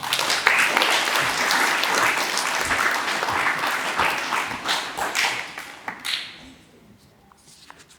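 Audience clapping for about six seconds, a dense patter of many hands that dies away, with a few stray claps near the end.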